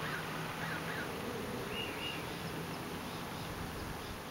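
Steady outdoor background hiss with a faint low hum, and a brief high two-note chirp about two seconds in; the sound begins to fade near the end.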